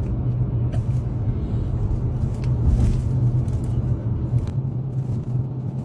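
Steady low rumble with a hum, and a few faint clicks.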